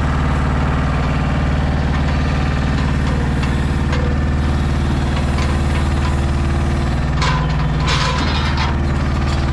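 DAF XF 480 truck's diesel engine running at a steady speed to power its Kennis 14R loader crane while the grab is swung. Near the end come two short bursts of hiss and rattle.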